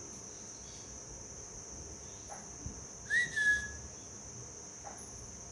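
Steady high trill of crickets, with one short whistle from a parrot about three seconds in that rises sharply and then slides down and holds briefly.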